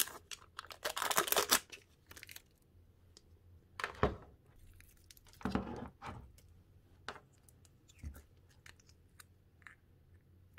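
Clear plastic film seal crinkling and tearing as it is peeled off a plastic macaron-shaped slime container, most of it in the first second and a half. A few brief, scattered handling noises follow.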